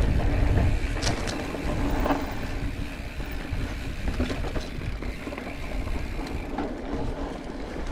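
Mountain bike riding along a dirt trail: wind rumbling on the microphone over tyre noise, with scattered clicks, knocks and rattles from the bike. It grows somewhat quieter toward the end.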